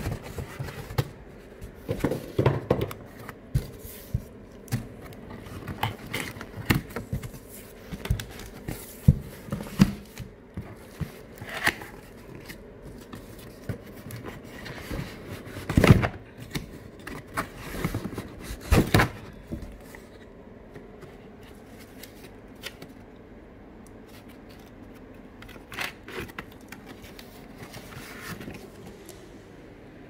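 Cardboard boxes and their flaps being handled and pulled open: irregular scrapes, rustles and knocks. The loudest knocks come about halfway through, after which it goes quieter with only a few scrapes.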